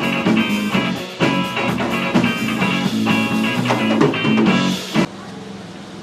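Live psychedelic rock band playing, with electric guitar to the fore. The music cuts off suddenly about five seconds in, leaving a quieter steady background.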